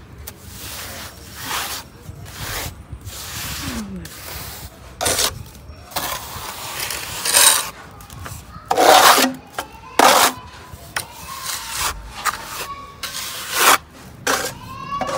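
Steel plastering trowel scraping cement mortar off a board and spreading and smoothing it on a wall, in a series of uneven rasping strokes, the loudest in the second half.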